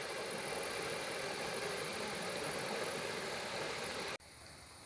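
Steady outdoor background noise, an even hiss and rumble with no distinct events, that drops off suddenly about four seconds in to a quieter ambience.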